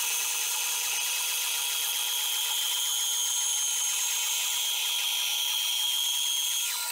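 Bandsaw resawing a board held in a sliding carriage: the blade cuts steadily through the wood over the saw's even running whine. The sound drops a little near the end as the cut finishes.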